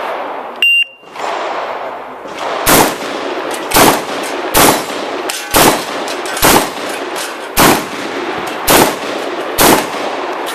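A shot timer's short start beep, then a shotgun fired eight times, about once a second, at falling steel popper targets.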